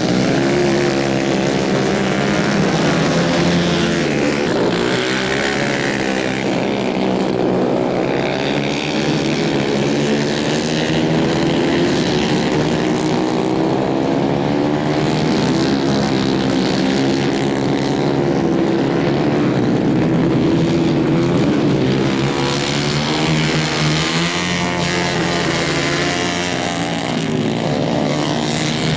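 Several 150 cc racing kart engines running hard on a dirt track, their pitch rising and falling over and over as the karts lift off and accelerate again through the bends.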